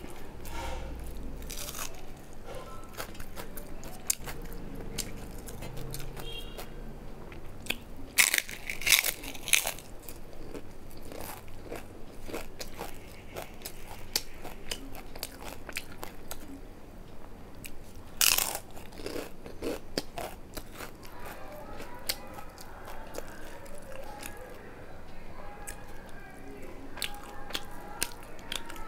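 A person eating rice and fried fish by hand, chewing close to the microphone with small wet clicks throughout. Louder crunchy bites come about eight seconds in and again about eighteen seconds in.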